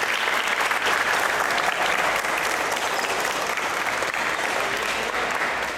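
Crowd clapping steadily: dense, sustained applause from many hands.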